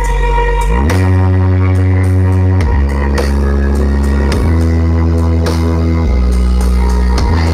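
Very loud electronic dance music blasted through a large carnival sound system, dominated by a heavy bassline of long held notes that change pitch about every second and a half.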